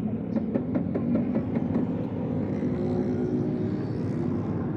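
Steady low machine hum, with a quick run of light knocks or taps in the first two seconds.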